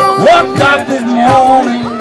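Acoustic blues band playing: a harmonica plays bending notes over acoustic guitar and cajon, with no sung words.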